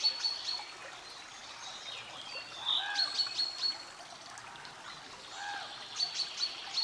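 Birds calling over the steady rush of river water: short arched calls come in twice, around three seconds and five and a half seconds in, with quick high chirps in between.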